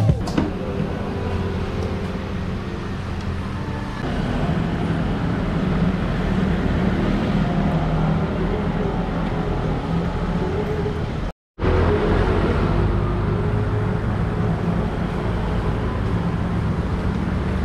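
Steady low hum of a motor vehicle engine running, over a noisy traffic-like background; it steps up a little about four seconds in and drops out for an instant about eleven seconds in.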